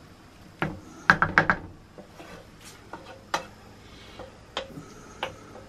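Wooden spoon knocking and scraping against a non-stick frying pan as chopped vegetables are stirred: a quick run of four knocks about a second in, then single knocks every second or so.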